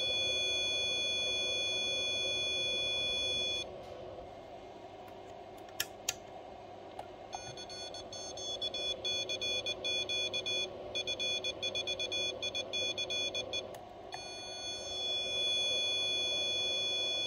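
Morse code (CW) audio tone of a homebrew one-transistor BD139 40 m QRP transmitter being keyed. A long steady held tone comes first, then a couple of clicks, then several seconds of keyed dots and dashes, then another long held tone. A steady low hum runs underneath.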